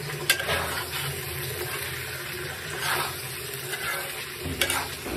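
Diced pumpkin sizzling as it fries in a karahi, stirred with a metal spoon that scrapes against the pan a few times.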